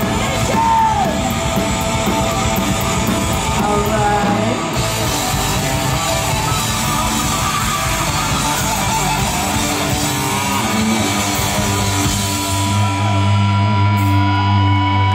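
Hard rock band playing live: distorted electric guitars, bass guitar and drums. Near the end the band settles into a long held low chord.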